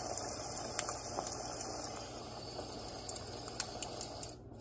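Babelio white noise machine's small speaker playing its "Bonfire 1" campfire recording: a steady hiss with scattered sharp crackles and pops. The sound drops away briefly near the end.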